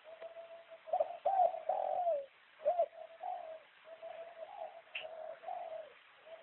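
Spotted dove (terkukur) cooing: a run of low, repeated coos, the loudest and longest notes about a second in, then softer coos.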